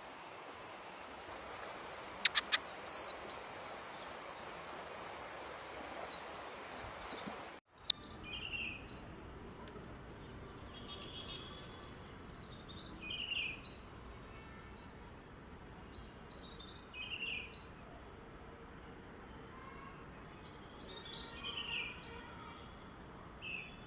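Small birds chirping. At first a few faint chirps sound over a steady hiss, with two sharp clicks about two seconds in; after a brief break near eight seconds, clusters of quick high chirps come every few seconds.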